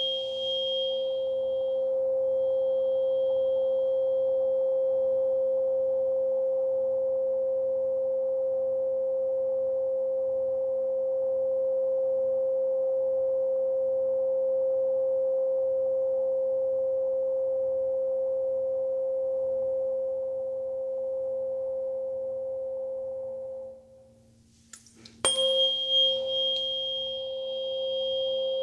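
A Solfeggio-set tuning fork rings one steady pure tone after being struck, with a high metallic overtone that dies away within the first couple of seconds. About 24 seconds in the tone stops. A second or so later the fork is struck again with an audible knock and rings at the same pitch, the bright overtone returning.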